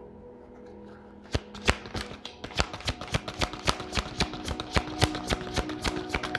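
A tarot deck being shuffled by hand: a quick, rapid run of card flicks and slaps that starts about a second in, over faint background music.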